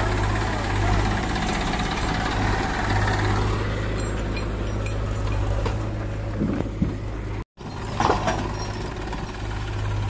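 Diesel engines of a Massey Ferguson 1035 DI tractor (three-cylinder) and a JCB backhoe loader running steadily at low revs. Sound cuts out for a moment midway, and a couple of sharp knocks come just before and just after the cut.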